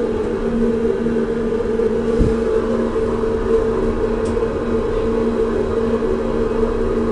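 Schindler hydraulic elevator in motion: a steady hum with two steady tones. A single low thump comes about two seconds in.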